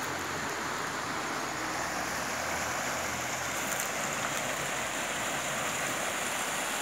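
A small, shallow creek flowing over rocks and snags: a steady, even sound of running water.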